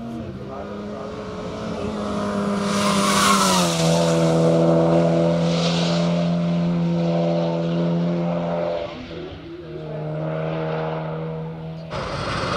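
Hatchback rally car's engine at high revs, passing close about three and a half seconds in with a sharp drop in pitch. It then holds a steady note as it pulls away up the course, with a brief dip near nine seconds. The sound changes abruptly near the end.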